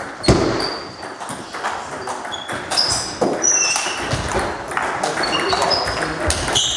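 Table tennis rally: the ball clicking off the bats and the table at an uneven pace, with short high squeaks among the hits.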